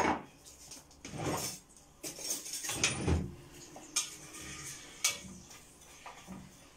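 Metal cookware clattering: a spoon and lid knocking and scraping on a metal pot as frying meat is tended on the stove, in several separate clanks spread over a few seconds.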